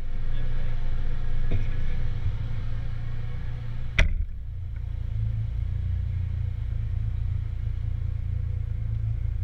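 Porsche 996 Turbo's twin-turbo flat-six idling with a steady low rumble, and the car door shutting with a sharp slam about four seconds in, after which the engine sounds duller from inside the closed cabin.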